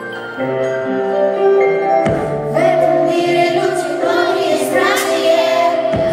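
Live pop music through the concert sound system: a backing track of held notes, with a young female voice starting to sing about two and a half seconds in.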